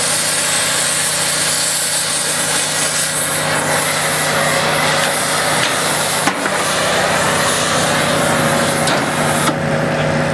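Oxy-fuel cutting torch burning Chem-O-Lene, its flame and cutting-oxygen jet hissing steadily as it cuts steel plate, then cutting off sharply near the end. A steady engine-like hum runs underneath, and there is a single knock about midway.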